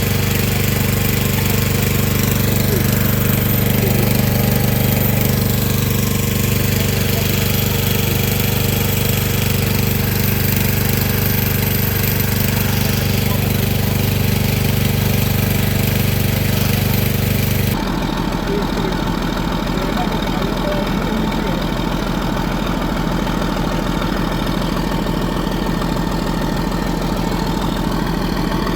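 Diesel engine running steadily at idle. About eighteen seconds in, the sound cuts abruptly to a different engine note with a more pulsing beat.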